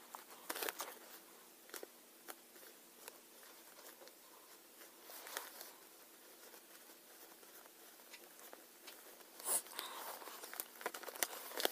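Faint rustling and crinkling of paper being folded and handled by hand, with scattered soft crackles and denser, louder rustling near the end.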